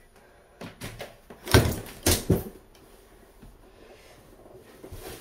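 A quick run of about five knocks and thumps, the loudest about a second and a half in, then quiet.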